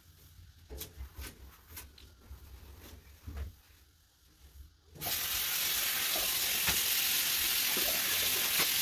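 A few faint handling clicks and knocks, then about five seconds in a tap is turned on full and hot water gushes out in a steady, loud rush.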